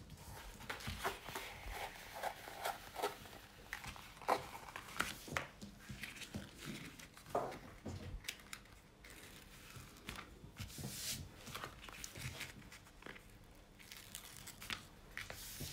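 Packaging of a diamond-painting canvas being unwrapped by hand: crinkling wrapping and tearing of sticky tape, in irregular rustles and small clicks.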